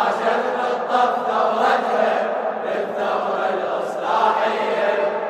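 A group of men chanting a Husseini latmiyya refrain in unison, the chorus answering the radood's cue.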